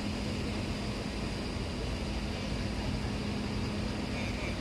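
Steady machinery drone from a large passenger ferry lying at the quay, a constant low hum under an even rushing noise.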